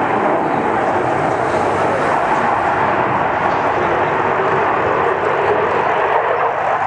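Eurofighter Typhoon's twin turbofan jet engines at high power during a display pass: a loud, steady rushing jet roar that drops off suddenly at the very end.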